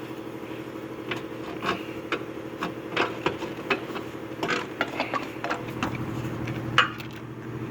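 Hand tools working loose the fasteners of a car's center engine mount: scattered, irregular sharp metallic clicks and clinks, the loudest near the end, over a steady hum.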